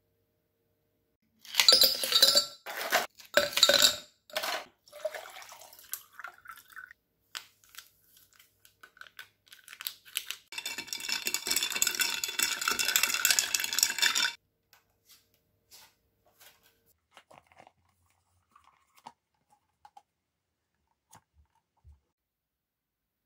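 Ice clinking and clattering in a tall drinking glass: a run of sharp clatters a couple of seconds in, then, a little before halfway, about four seconds of continuous clinking with a glassy ring as the iced drink is stirred.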